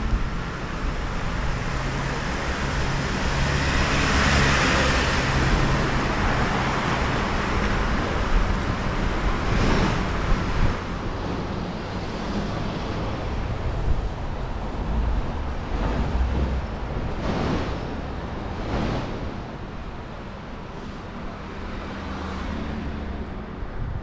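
Road traffic: cars passing on the street over a steady low rumble, the loudest pass about four seconds in, with several shorter passes later on.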